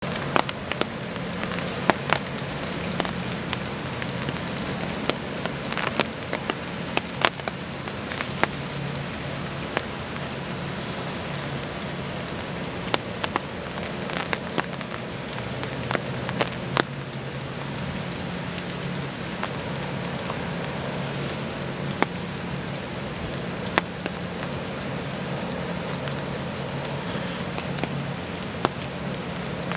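Steady rain, with many irregular sharp ticks of drops striking close to the microphone, over a steady low hum.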